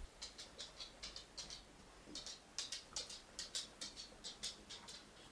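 Faint, irregular light clicks and ticks, several a second, from hands handling dismantled plastic printer parts.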